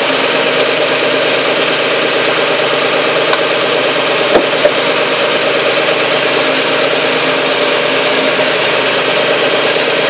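Tractor diesel engine running steadily, heard close up from on its hood, with two light knocks about four and a half seconds in.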